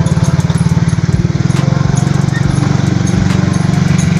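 Motorcycle engine running steadily with an even, fast pulse, close to the microphone as the bike rolls along.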